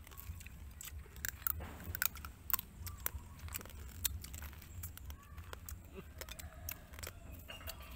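Eating cooked crabs by hand: shells cracking and clicking as they are broken apart with the fingers, with crunchy chewing, in many quick irregular clicks over a steady low rumble.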